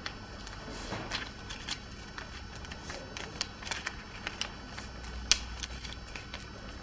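A carbonless-paper ticket being folded by hand: scattered light crinkles and clicks of the paper, with one sharper crack about five seconds in.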